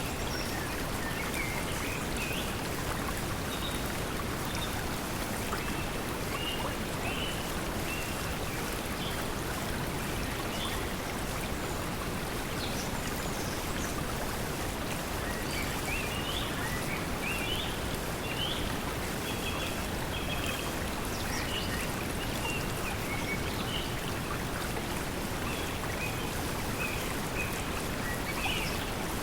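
Steady pink noise blended with flowing water, an even rushing hiss, with small birds chirping on and off throughout.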